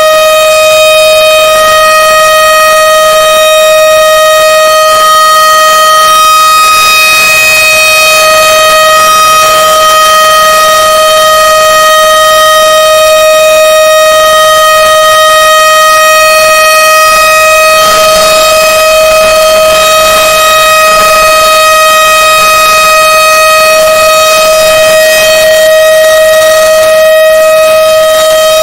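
Emergency alert alarm: one loud, steady tone held at a single pitch without rising or falling.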